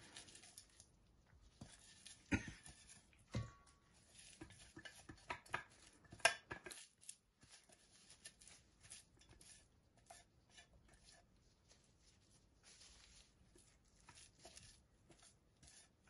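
Spatula scraping ground coriander and green chilli paste out of a stainless steel bowl into a steel mixing bowl: scattered metal scrapes and clinks, with a few louder knocks in the first seven seconds, then fainter scraping.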